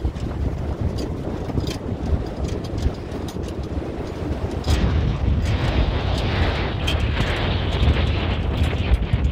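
Wind buffeting the microphone in a heavy, uneven rumble, with scattered crunching steps on a gravel track; a rushing hiss of wind builds about five seconds in.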